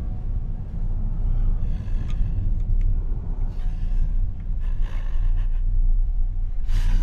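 Low, steady rumbling drone from a horror film's ambient soundtrack, with faint short rustling noises over it a few times.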